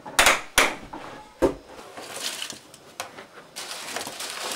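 Three sharp knocks from a plastic toy garbage truck being handled, the last about a second and a half in, followed by lighter clatter.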